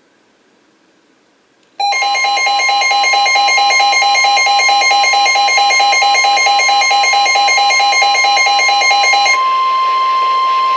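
Electronic emergency alert tone. A rapidly pulsing, bell-like pattern of several tones starts abruptly about two seconds in and runs for about seven seconds. It then gives way to a single steady tone of about 1 kHz, which signals the start of the next weather alert.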